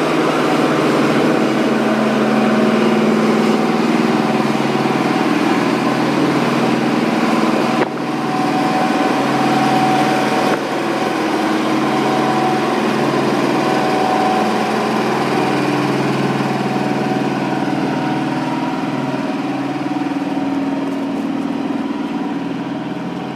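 Heavy machine engine running steadily, with abrupt changes about eight seconds in and again two seconds later, where the recording cuts.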